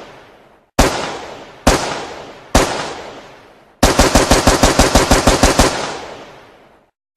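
AK-47 rifle firing: three single semi-automatic shots about a second apart, each with a long fading echo, then a full-automatic burst of about twenty rounds at roughly ten a second that dies away in echo.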